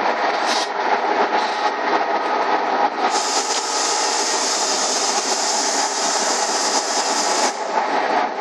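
Mobile truck-loading belt conveyor running: a steady hum from its drive with the belt rattling over its rollers as it carries a heavy jute bag up the incline.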